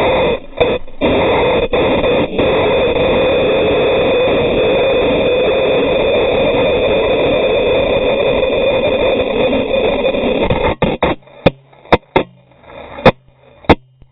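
A crashed motorcycle sliding on its side along the track tarmac: a loud, continuous scraping rush. It cuts off abruptly about eleven seconds in, followed by a few sharp knocks as the bike and camera tumble.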